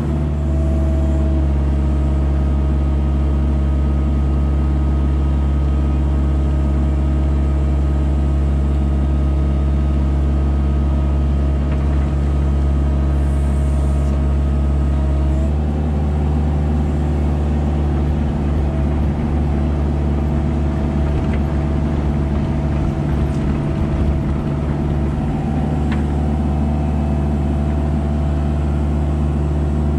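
Kubota mini digger's diesel engine running steadily close by, with its note stepping up slightly about halfway through as the arm works the lifted load.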